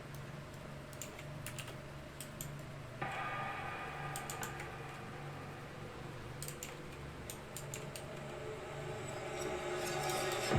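UE Megablast Bluetooth speaker playing an electronic track at 60% volume, picked up by a microphone: a low pulsing bass with sharp clicks over it. Fuller mid-range sound comes in about three seconds in and grows louder toward the end.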